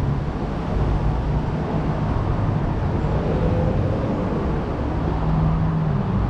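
Steady low background rumble with a low hum.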